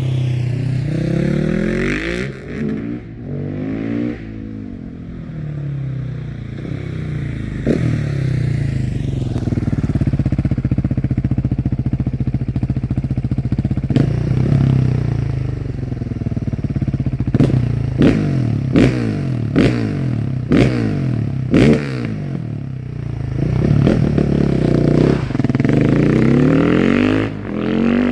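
KTM 690 SMC R single-cylinder engine breathing through a decat aftermarket exhaust and filter, revving up and dropping back again and again under way. A series of sharp cracks comes through in the middle of the run, about 14 to 22 seconds in.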